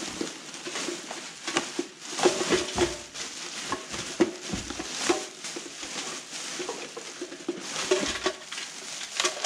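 Plastic garbage bags rustling and crinkling as gloved hands rummage through them and pull items out, with a few dull bumps.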